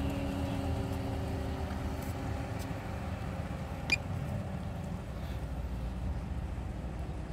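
Steady low outdoor rumble, with a faint hum that fades out in the first second or so and a single sharp click about four seconds in.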